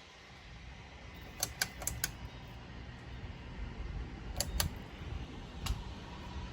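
Ceiling fan running with a low steady rumble, and sharp light clicks on top: four quickly together, then a pair, then one more.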